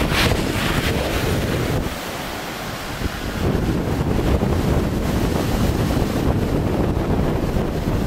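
Wind buffeting the microphone over breaking surf, a steady rushing noise with a heavy low rumble that drops briefly about two seconds in.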